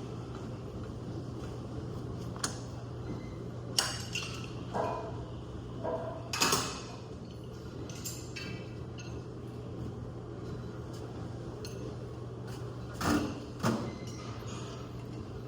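Metal gym equipment clanking and clinking in a handful of separate knocks, some ringing briefly, over a steady hum of the gym's background noise.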